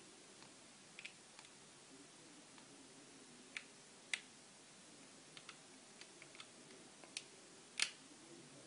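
Scattered small clicks and taps from a small screwdriver working out the two tiny screws at the bottom of an iPhone, irregular and faint, with two sharper clicks about four seconds in and near the end.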